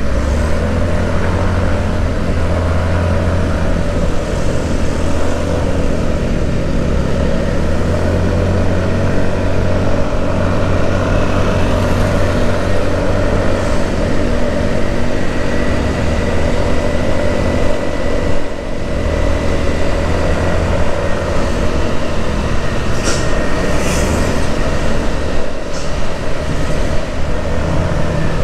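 A road vehicle on the move: a steady low engine hum with road and wind noise that hardly changes.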